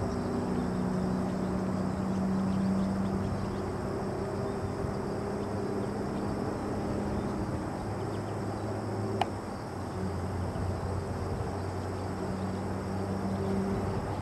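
Steady low engine-like drone with a low hum that fades in and out, over an even background hiss. A single sharp click about nine seconds in.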